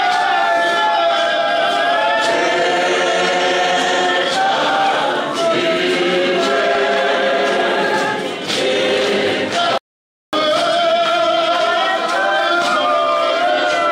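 A church choir and congregation singing a hymn together, many voices at once. The sound cuts out completely for about half a second about ten seconds in.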